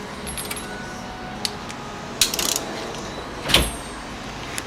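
Metal hand tools clinking as a socket and adapter are picked out and fitted: a few light clicks, a short jingling rattle about halfway, and a sharper metal clack about three-quarters in.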